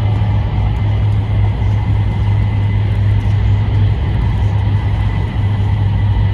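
Tohoku Shinkansen E2 series train running at speed: a steady, even low rumble.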